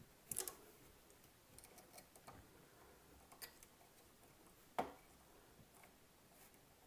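A handful of faint, scattered clicks and ticks from hand-work on the stepper motor mount of a Makerbot Replicator 2 3D printer as the motor is pushed over to tension the X-axis belt. The sharpest click comes about five seconds in.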